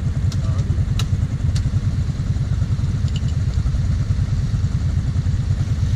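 Quad (ATV) engine idling steadily with a low, pulsing rumble. Three short, sharp clicks sound within the first couple of seconds.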